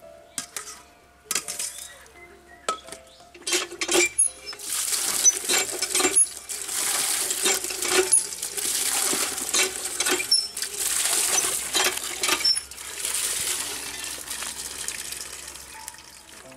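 Cut taro pieces clink as they are dropped into a steel pot and colander. About four seconds in, water starts gushing from a hand pump and splashing into the steel colander of taro and onto stone, loud and rising and falling in surges, then easing off near the end.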